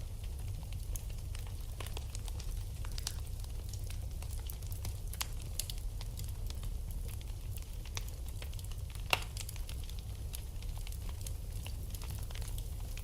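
Wood fire burning in a fireplace, crackling with scattered small pops over a steady low rumble, and one sharper pop about nine seconds in.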